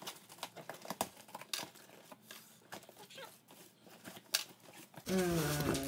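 A blade slitting the packing tape along the seam of a cardboard box: quiet scattered scrapes, clicks and tape tearing. Near the end, a short louder voice-like sound cuts in.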